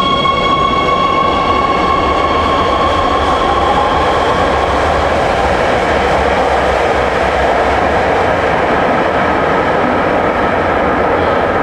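Metro train pulling out of an underground station. Its traction motors whine steadily and fade over the first few seconds. The wheels' rolling rumble carries on as the last cars pass and the train runs into the tunnel.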